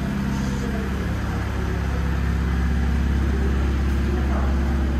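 A Mini Cooper Convertible's engine idling steadily, just after being started.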